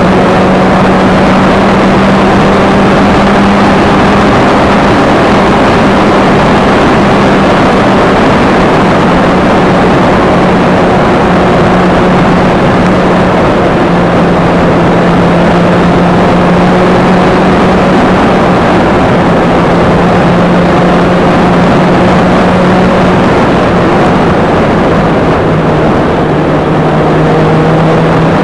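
A vehicle's engine droning at a steady cruise, its note holding one pitch and dipping slightly lower near the end, under loud wind rush on the outside-mounted camera.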